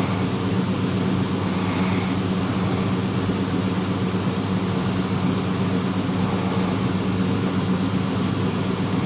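Steady low hum, with a sleeping person's breaths heard as a faint hiss about every four seconds.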